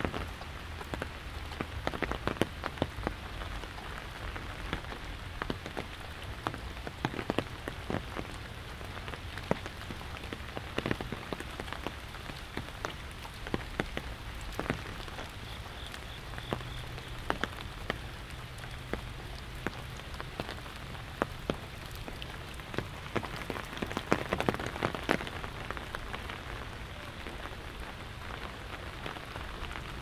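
Steady rain falling on an umbrella overhead: a constant hiss with many sharp single drops ticking on the canopy, with a denser, louder spell of drops a little over twenty seconds in.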